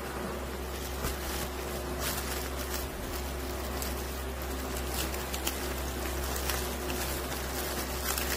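Plastic shrink-wrap on a stack of parchment paper liners crinkling in short, scattered crackles as a hand presses and moves it, over a steady low hum.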